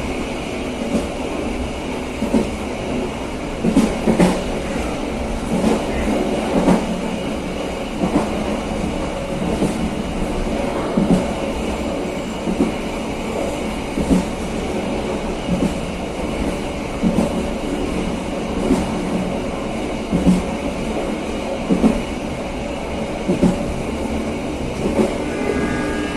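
KA Serayu passenger train running along the track: a steady rumble of wheels on rail, broken by frequent irregular knocks and clacks from the wheels over the track.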